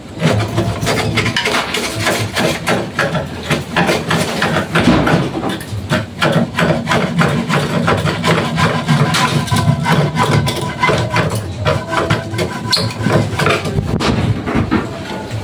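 Hand saw cutting, with a steady run of rapid back-and-forth strokes, and wind rumbling on the microphone.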